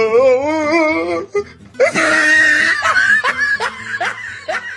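A sound-effect clip of a voice: a wobbling note with heavy vibrato for about a second, then, after a brief pause, a burst of shrill laughter breaking into short rising cackles, about three or four a second, that fade toward the end.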